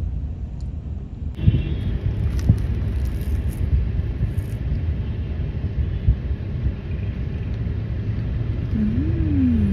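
Steady low vehicle rumble heard from inside a car, turning brighter about a second and a half in with a few faint clicks.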